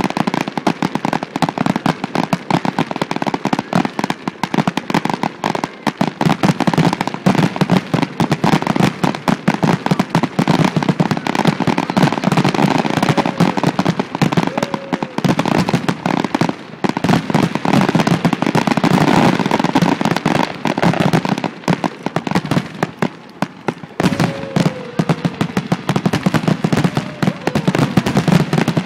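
Aerial fireworks display: a dense, continuous barrage of shell bursts and crackling, the bangs coming in quick succession.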